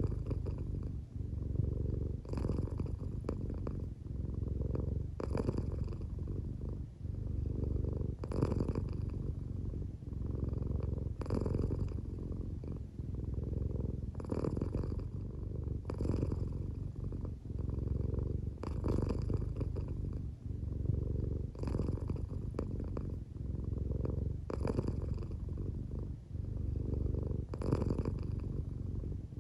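An American Shorthair cat purring steadily while half asleep, a low continuous rumble that swells and turns with each slow breath about every three seconds, a brief breathy rasp marking each turn. The uploader suspects the purr may be partly snoring.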